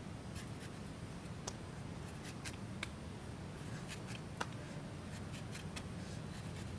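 A knife cutting into crisp star fruit held in the hand: a scatter of small sharp cuts and clicks, the loudest about four seconds in, over a steady low hum.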